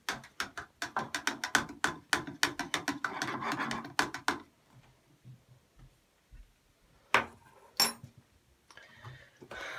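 A metal spoon stirring in a plastic cup, ticking against its sides about six times a second for some four seconds before stopping. Two sharp knocks follow a few seconds later.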